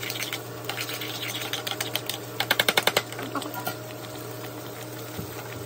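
A utensil stirring a thick mixture in a metal saucepan, scraping and clicking against the pan, with a fast run of sharp clicks about halfway through. A low steady hum runs underneath.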